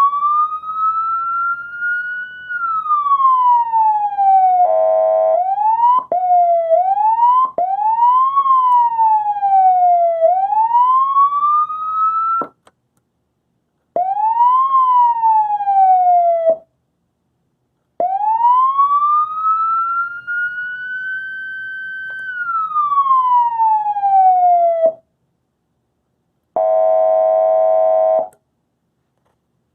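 Code 3 model 3932 siren run through its tones: a slow wail that rises and falls, a run of quicker rising-and-falling sweeps, and a short buzzing horn tone about five seconds in and again near the end. The siren stops and restarts several times, with brief silences between tones.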